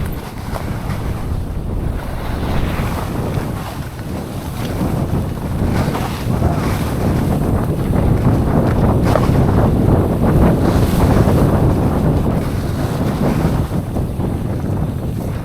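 Wind rushing over the microphone of a riding mountain bike, with the tyres rolling and the bike rattling over the trail underneath. It grows louder about six seconds in and eases near the end.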